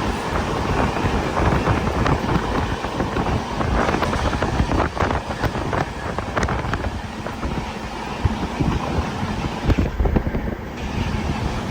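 Steady rumble of a moving vehicle, with wind buffeting the microphone and a few short clicks about halfway through.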